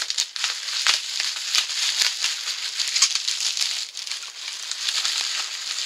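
Packaging crinkling and rustling as a small wrapped parcel is opened by hand, with many quick crackles.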